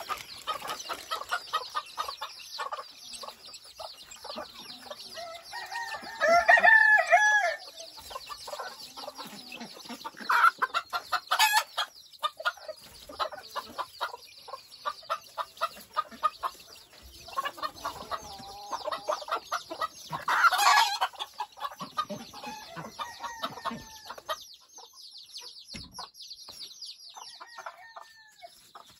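A bantam hen clucking to her chicks while the chicks peep constantly. A louder, drawn-out chicken call comes about six seconds in, and another near twenty seconds in.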